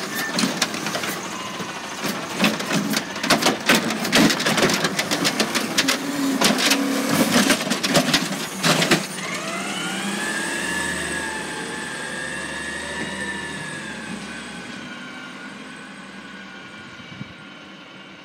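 Automated side-loader garbage truck dumping a trash cart: a dense clatter of knocks and bangs as the trash falls and the cart shakes for about nine seconds. Then the truck pulls away with a rising engine whine that levels off and fades as it drives off.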